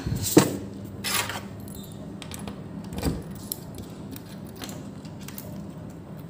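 A bunch of keys on a ring jangling and clicking as a key is worked in a cabinet door's lock. There is a sharp knock about half a second in.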